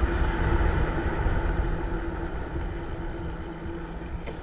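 Wind buffeting the microphone of a bicycle-mounted camera while riding down a hill, a dense low rumble that gradually fades, with a faint steady hum underneath.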